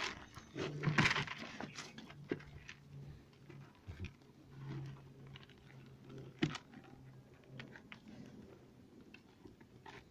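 Ram eating feed from a plastic bucket: scattered crunching and chewing with small knocks and clicks, loudest about a second in.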